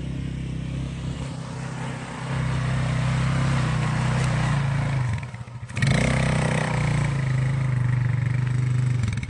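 150cc ATV engine running on the throttle. It gets louder about two seconds in, drops off briefly around the middle, comes back on strongly, and settles back toward a pulsing idle near the end.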